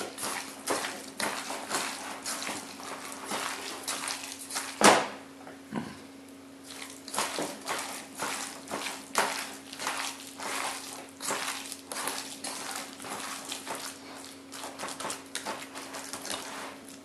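Hands kneading raw chopped chicken mixed with garlic, salt and adjika in a stainless steel bowl: irregular wet squelching and slapping with knocks against the bowl, one sharper knock about five seconds in. A faint steady hum runs underneath.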